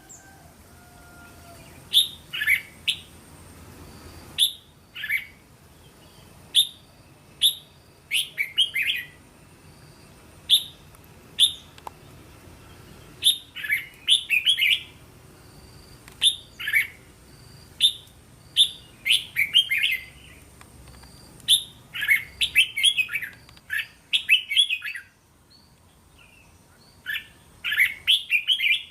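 Red-whiskered bulbul singing: short, quick phrases of a few bright chirpy notes, repeated every second or two, with a brief pause near the end.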